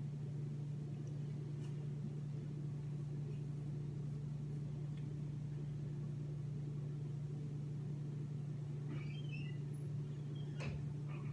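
A steady low electrical or motor hum holds unchanged throughout, with a few faint short high chirps and a click near the end.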